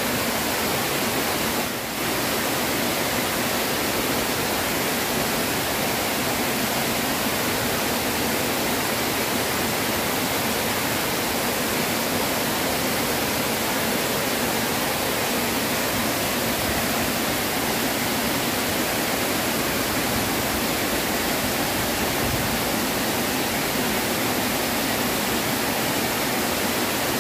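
Water pouring over a small river weir into the pool below: a steady, even rush of falling water, with a brief dip about two seconds in.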